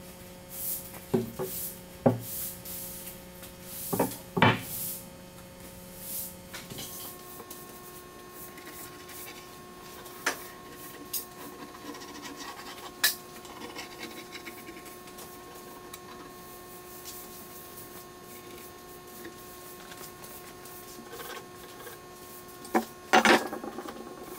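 Handling sounds of a wooden board on a workbench: scattered knocks and rubbing over quiet shop room tone, with a short louder cluster of knocks near the end.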